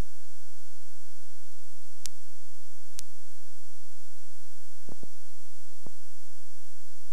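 Steady electrical hum with a faint constant high whine, the background noise of a VHS in-car camera recording. Two faint clicks come about two and three seconds in, and a few low thumps about five to six seconds in.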